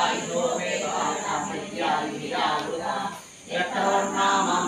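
A man chanting Sanskrit verses in a steady, sing-song recitation through a microphone. The chant breaks briefly for a breath a little past three seconds in.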